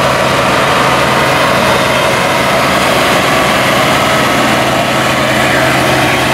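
Diesel engine of an International Harvester farm-stock tractor running hard at a steady pitch under full load as it drags a weight-transfer pulling sled.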